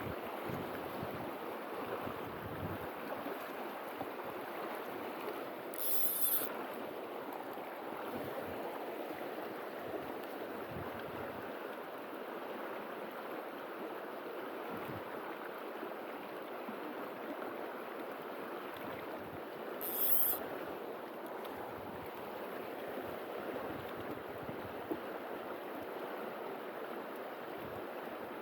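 Steady rushing of flowing river water. A brief high hiss comes twice.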